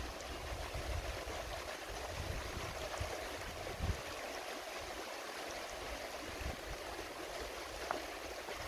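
Shallow river rushing steadily over a rocky bed, with riffles of white water.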